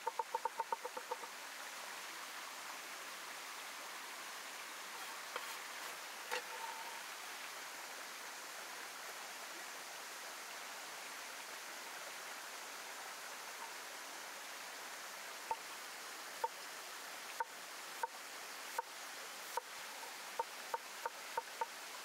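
Chinese cleaver chopping on a wooden board: a fast run of strokes for about the first second, each with a short ring. After that only the steady rush of flowing water. From about fifteen seconds in, single chops return and quicken toward the end as the cleaver cuts ginger.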